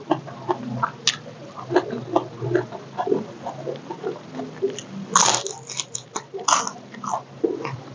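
Close-miked chewing of crispy food: a run of wet mouth clicks and smacks, with louder crunchy bites about five seconds in and again a little over a second later.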